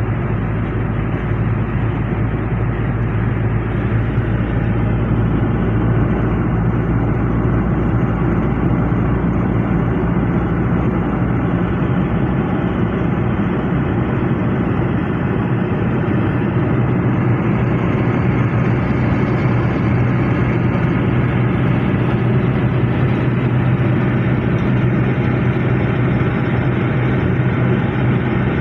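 Toyota Revo pickup cruising at steady motorway speed: a steady low engine hum under even tyre and road noise, with no change in pace.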